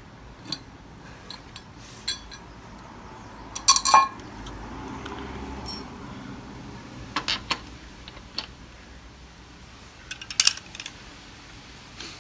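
Metal tools and parts clinking and knocking in irregular sharp clicks, the loudest pair about four seconds in and further clusters later, over a faint low hum.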